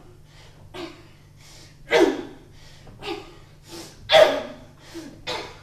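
A woman gasping hard: a string of sharp, noisy breaths, about seven in all, the loudest about two and about four seconds in.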